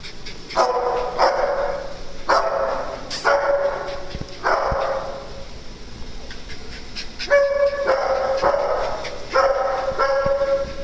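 Dogs barking in play: a run of about eight drawn-out barks, grouped in two bursts with a pause of about two seconds between them.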